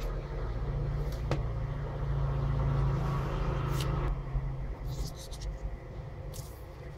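Small clicks and ticks of a plastic battery holder, circuit board and wires being handled, over a steady low background rumble that eases off about four seconds in.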